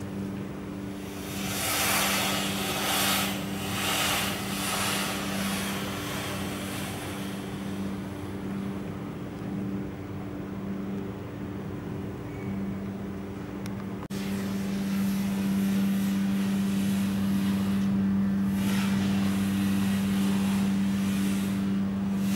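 A steady low mechanical hum, with a hiss that swells and fades over the first few seconds. A sharp click comes about fourteen seconds in, after which the noise is louder and steadier.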